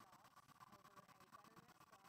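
Faint sound of a MakerBot Replicator 2 3D printer at work: its stepper motors whine in short notes that keep changing pitch as the print head moves.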